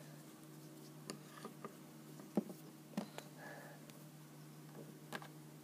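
Faint handling noises: a few soft clicks and taps as small toy-animal erasers are picked up and set down, over a steady low hum.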